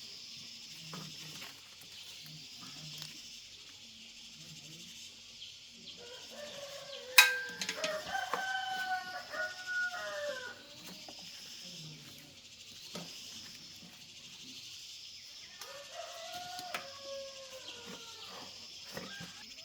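A rooster crows twice, a long call about six seconds in and a shorter one near the end, over a steady high insect drone. A single sharp click sounds during the first crow.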